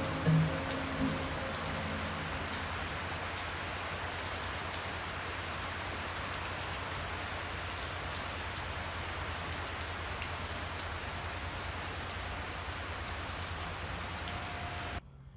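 Steady rain falling on surfaces, with scattered drop ticks, cutting off abruptly near the end.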